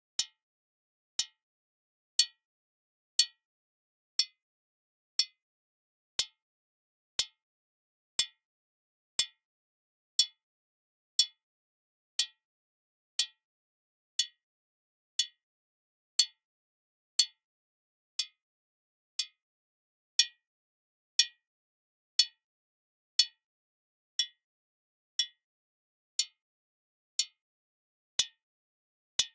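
Computer-synthesized modal sound of a small metal sculpture being struck by an impulse: short, bright metallic pings about once a second, each a cluster of high partials that dies away almost at once. Each impulse lands at a different point on the model, and the renderings come from compressed and uncompressed versions of the modal model.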